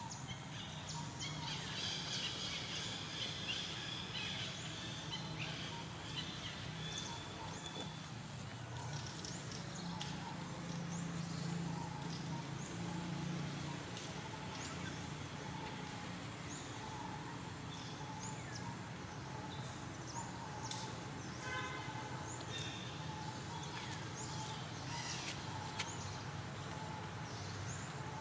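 Steady outdoor background noise with scattered short bird chirps and calls, and a quick trill of repeated notes a little past the middle.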